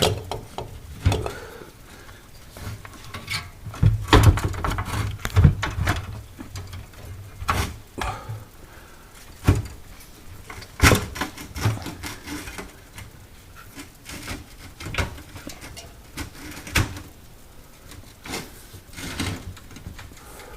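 Irregular knocks, clunks and rattles of metal parts being handled and worked into place in a refrigerator's condensing unit, with a few heavier thumps about four to five and a half seconds in.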